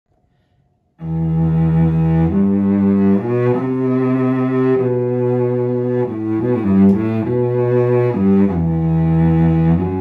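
A 1984 Lionel Karl Hepplewhite English cello bowed. About a second in it begins a slow melody of sustained notes, starting low, with a quicker run of shorter notes in the middle and a long low note near the end.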